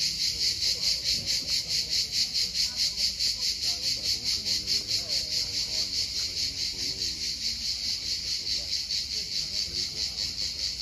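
Cicadas in the trees, a loud, high buzzing chorus that pulses about four times a second.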